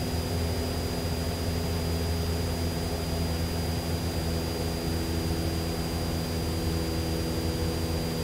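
Cessna 172SP's four-cylinder Lycoming IO-360 engine and propeller droning steadily, heard from inside the cabin. A thin, steady high-pitched whine sits above the drone.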